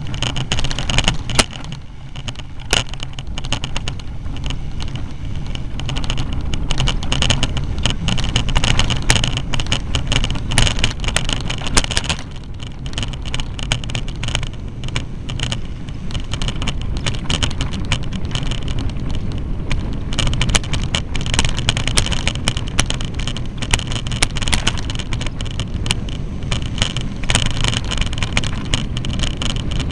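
Riding noise from a bicycle on a rough forest dirt track, picked up by an action camera's own microphone: a steady rumble of wind and rolling tyres with frequent small knocks and rattles from the bumps.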